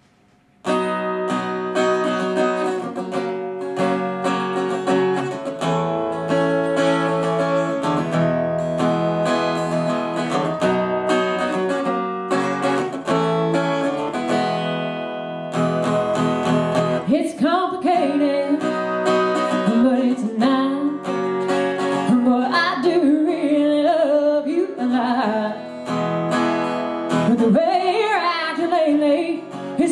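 Solo acoustic guitar playing a song intro, then a woman's singing voice comes in over it a little past halfway.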